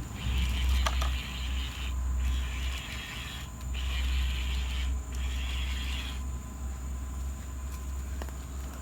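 Small electric gear motors of an RC construction model whirring in four short bursts of about a second each, with brief pauses between, over a low rumble.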